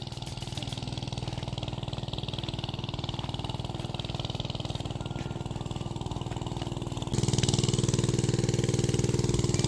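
A small engine running steadily with an even, pulsing beat, becoming abruptly louder about seven seconds in.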